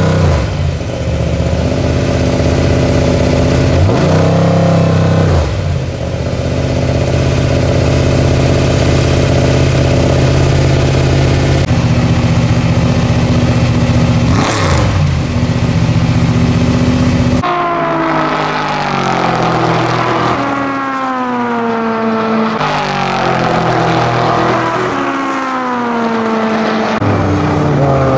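1970 Dodge Challenger T/A race car's 572-cubic-inch (9.4-litre) V8 idling loudly at its open side exhaust, blipped briefly twice. About two-thirds of the way in it switches to the car racing on track, its V8 pitch rising and falling through the gears.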